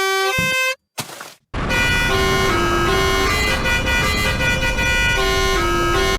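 Musical bus horn playing a stepping multi-tone tune, which breaks off after under a second. Following a short gap and a brief hiss, a second musical bus horn plays another melody over heavy background noise.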